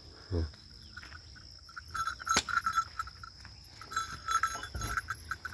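Small ghungroo bells jingling in short bursts as they are handled and tied around a buffalo calf's neck, with one sharp click a little past two seconds in. A steady high insect drone runs behind.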